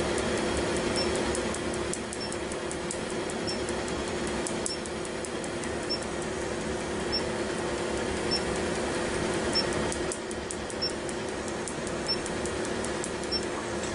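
Tattoo-removal laser at work: a steady machine hum with rapid faint clicks and a short high tick about every 1.2 seconds as the handpiece fires.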